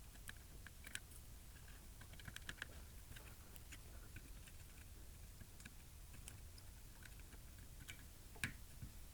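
Near silence with faint, scattered small clicks and taps, and one sharper click about eight and a half seconds in: tools tapping against a circuit board while a MOSFET is desoldered.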